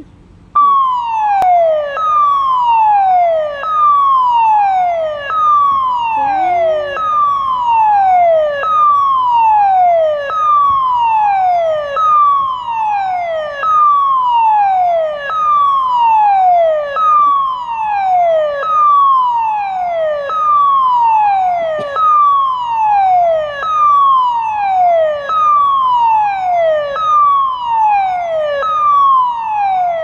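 Dam warning siren sounding loudly from a horn loudspeaker: a falling tone repeated over and over, each sweep dropping in pitch over under two seconds, starting about half a second in. It warns that the dam is about to release water and the river will rise.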